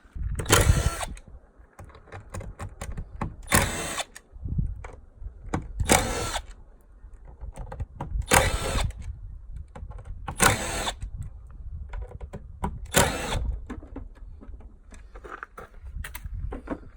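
Cordless drill-driver backing out screws from the Tesla Wall Connector's cover: six short runs about two and a half seconds apart, with small handling sounds between them.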